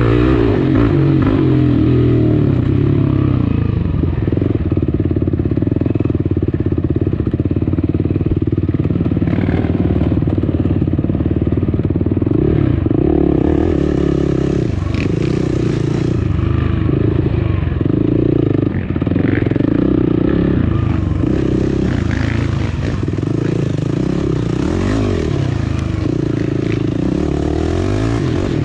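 Yamaha off-road dirt bike engine running hard under load, revs rising and falling with the throttle, with clatter from the bike over rough ground.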